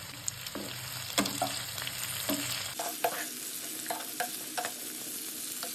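Chopped capsicum, tomato and onion sizzling in hot oil in a kadai while a spatula stirs them, scraping and knocking against the pan a dozen or so times.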